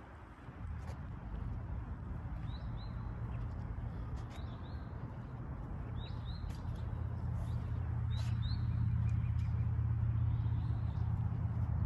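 Birds calling in short rising chirps, mostly in pairs, a few times over a low steady hum that grows louder in the second half.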